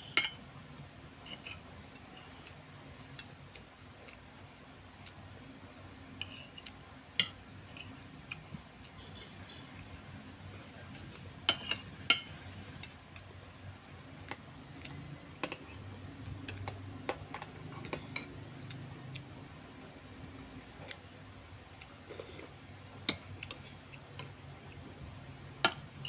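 Metal spoon and fork clinking and scraping against a ceramic plate and bowl during a meal, in scattered sharp taps, the loudest a pair about halfway through and one near the end.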